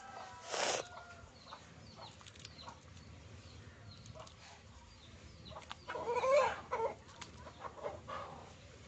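Chicken clucking, loudest about six seconds in. A short rustling burst comes under a second in, and small bird chirps sound throughout.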